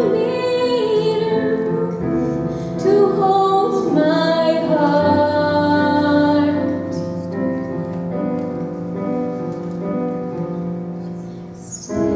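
A young woman singing a musical-theatre ballad solo over sustained instrumental accompaniment, with long held notes. The music eases to a quieter moment just before she comes back in louder near the end.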